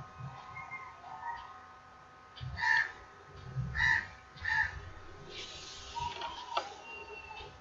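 A bird calling three times, short harsh calls a few seconds in, over a steady faint hum.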